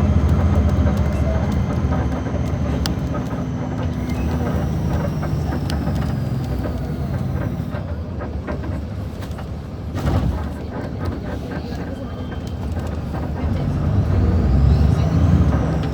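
Diesel engine of an Iveco-chassis Mascarello Roma M4 bus running under way: loud at first, easing off over the first several seconds, then pulling harder again near the end with a faint rising whine. A single knock sounds about ten seconds in.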